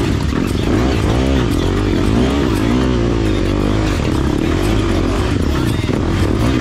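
Dirt bike engine running loud under throttle, its pitch rising and falling again and again as the throttle is worked.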